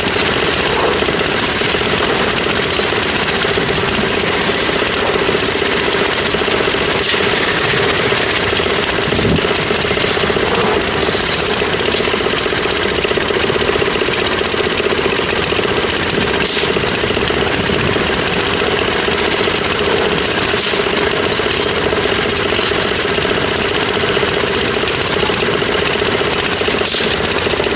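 Concrete mixer's engine running steadily under load, with a constant drone and a few short clicks now and then.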